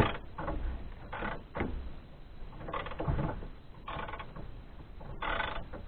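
Ratchet wrench turning the alternator belt's adjusting bolt in short, separate strokes, a few clicks and scrapes of metal tools on the engine, as the belt is tensioned.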